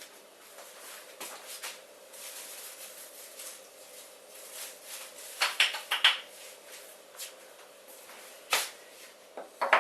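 Parts being handled and fitted by hand: sharp clicks and knocks, several in a cluster a little past halfway, a single knock later on and two more near the end, over a faint steady hum.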